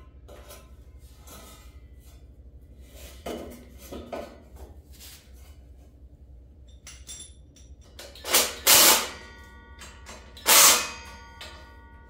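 Metal knocking and clanking as a new muffler pipe is fitted up to a Ford 8N tractor's exhaust manifold: a few light knocks, then three loud clangs in the last third that ring on briefly.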